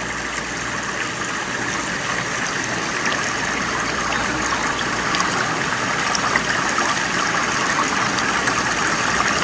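A shallow rocky stream and small waterfall rushing steadily.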